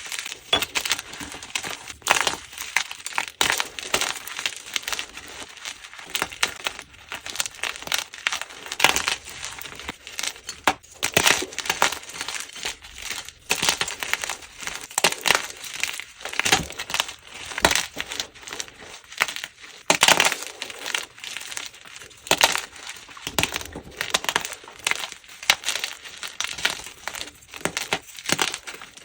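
Blocks of plain gym chalk being crushed and crumbled, a dense, irregular run of crunches and crackles with louder snaps every second or two.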